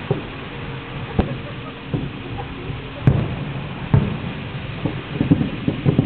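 Aerial fireworks shells bursting: separate booms, the strongest about three and four seconds in, then a fast run of pops and crackles near the end.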